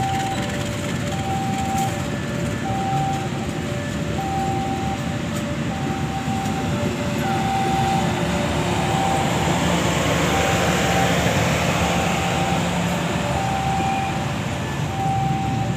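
Railway level-crossing warning alarm sounding a repeating two-tone electronic signal, about one note pair a second, over the rumble of a passing train that grows louder in the middle and then fades.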